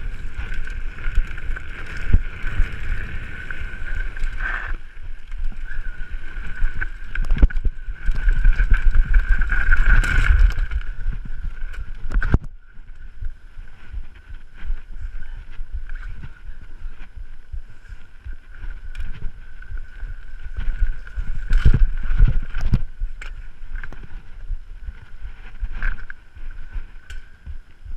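Mountain bike riding down a rough gravel trail, heard close up: wind rushing over the microphone, tyres crunching on gravel, and the bike knocking and rattling over bumps, with a steady high whine underneath. The noise is loud and busy at first, drops off sharply about twelve seconds in as the pace slows, and swells again a little past twenty seconds.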